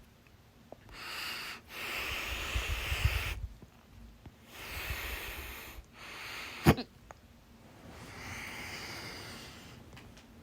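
A person with hiccups breathing noisily, several long breaths in and out, with one sharp, loud hiccup a little past halfway.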